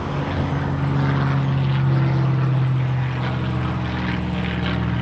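A steady low engine drone, swelling about two seconds in and then easing slightly.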